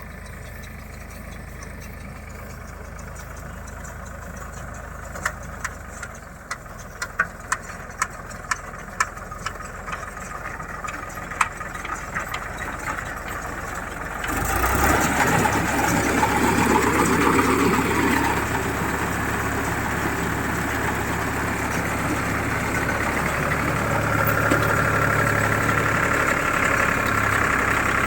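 Tractor engine running a baler in the field, with a string of sharp metallic knocks from the baler's mechanism. About halfway through the sound jumps to a louder, busier running of engine and machinery, which then holds steady.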